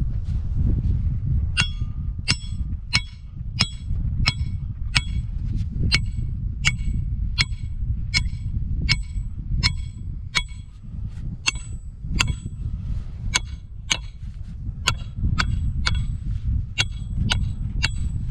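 Hammer striking a steel trap stake to drive it into the ground: a steady run of ringing metal clangs, about one and a half a second, starting about a second and a half in.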